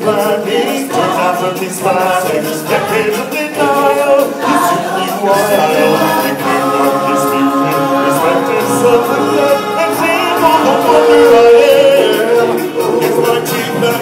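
Stage-show music with a group of voices singing in chorus, heard from the audience seats; a long note is held a little past the middle.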